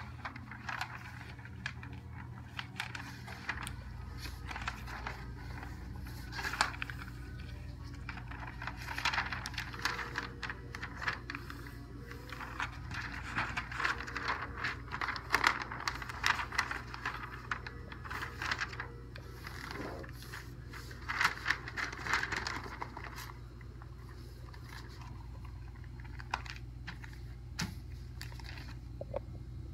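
A large wide-format paper print rustling and crackling as it is folded by hand, in repeated bursts as the sheet is lifted, flipped and creased, with brief scrapes as it slides on a wooden table. A steady low hum runs underneath.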